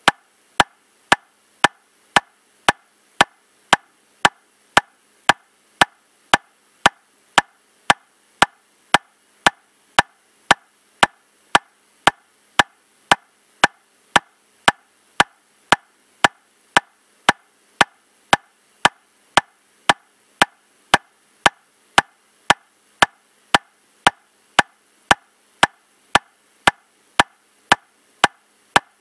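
Metronome clicking steadily at 115 beats per minute, just under two sharp, even clicks a second, all at the same strength.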